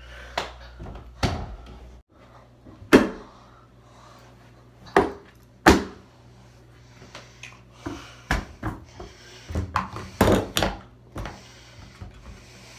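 A series of sharp knocks and thuds from a person moving about and handling a door, loudest about three and six seconds in, with a quicker run of them a few seconds later.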